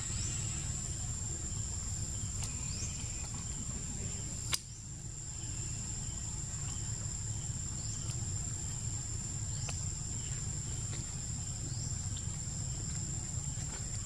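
Steady high-pitched insect drone over a low outdoor rumble, with short rising chirps every couple of seconds. A single sharp click about four and a half seconds in.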